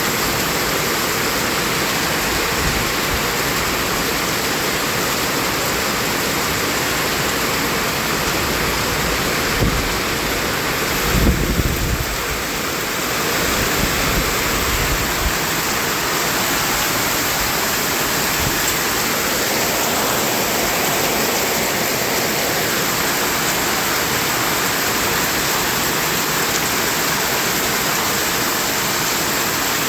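Continuous white noise: a steady, even hiss, with a brief low rumble about eleven seconds in.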